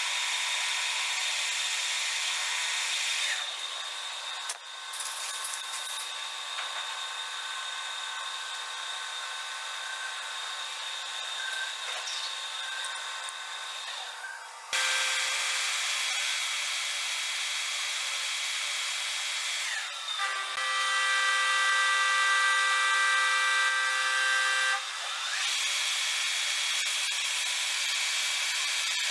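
Metal lathe running: a flat file rubbing against the spinning steel shaft, then, after a quieter stretch, the lathe turning a part with a cutting tool. A steady whine of several tones comes in for about five seconds past the middle.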